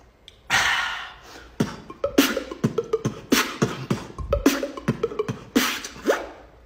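A man beatboxing. About half a second in comes a long hissing burst, then a quick rhythm of mouth-made kick, snare and hi-hat hits, with short pitched sounds that drop in pitch.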